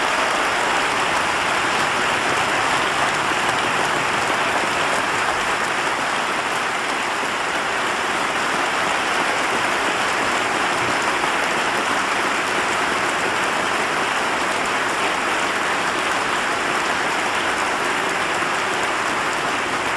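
Large audience applauding, a dense, steady clapping that holds at one level throughout.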